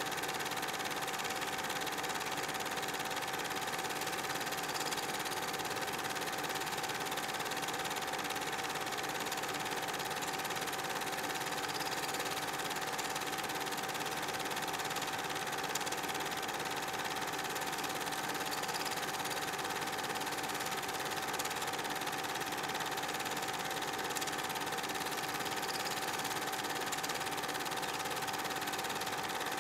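8 mm film projector running: a steady mechanical whir with a fast, even clatter and a constant whining tone.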